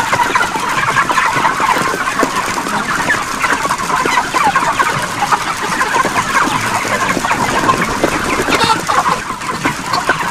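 A dense flock of broiler chickens packed in a shed, making a constant chorus of many overlapping short clucks and cheeps.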